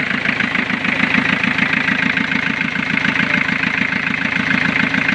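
Toyota 2C four-cylinder diesel engine idling steadily with an even, rhythmic beat, freshly started for a test run after a water pump replacement.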